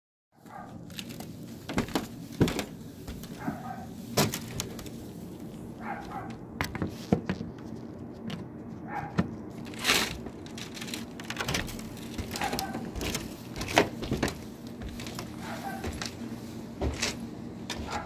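Steady motor hum with scattered sharp knocks and clicks, from dryer vent cleaning with a rotary brush on a flexible rod.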